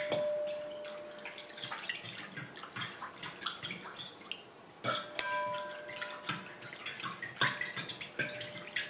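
Metal spoon stirring warm milk, sugar and yeast in a glass bowl, clinking rapidly against the glass with the liquid swishing. A couple of harder knocks, about five seconds in and again near seven and a half, leave the bowl ringing briefly.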